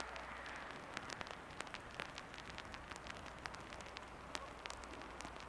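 Water spattering during a wet e-bike ride: many scattered sharp ticks of drops over a steady hiss.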